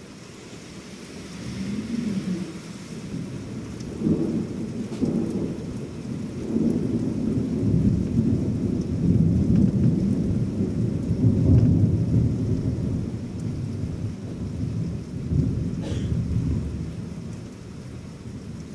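A long roll of thunder over steady rain. The rumble builds over the first few seconds, is loudest around the middle and dies away near the end.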